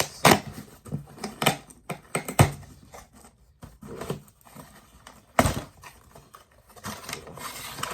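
Cardboard shipping box being opened and its packaging handled: a series of sharp knocks and clicks with short rustling and tearing between them, and a longer rustle near the end.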